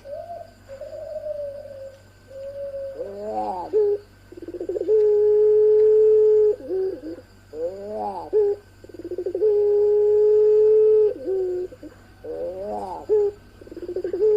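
Puter pelung doves, a long-cooing variety of domestic ringneck dove, cooing. The call comes three times, each a short rolling, arching phrase followed by a long, steady, drawn-out coo.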